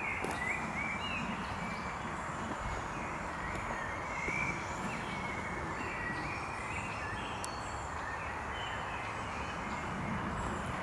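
Footsteps walking over forest-floor leaf litter, a steady rustle, with small birds chirping in the background.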